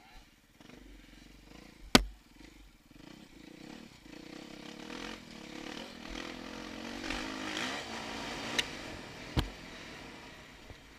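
Dirt bike engine running under trail riding, its revs rising and falling, with sharp knocks: a loud one about two seconds in and two more near the end.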